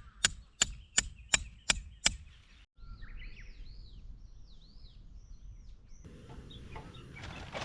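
A run of about seven sharp, evenly spaced knocks, roughly three a second, stopping about two seconds in; then birds calling with short, falling chirps, followed by faint outdoor ambience.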